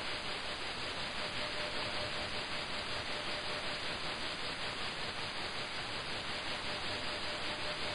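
Shortwave receiver audio of the WWV time-signal station on 10 MHz: steady hiss of band noise with a faint steady tone underneath.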